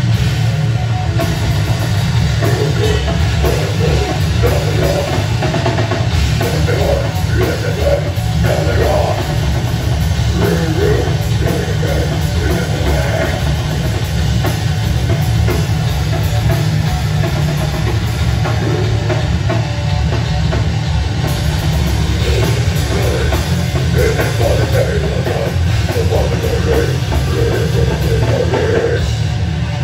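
A live rock band playing loud and without a break: electric guitar, bass guitar and a drum kit, in a heavy, metal-edged style.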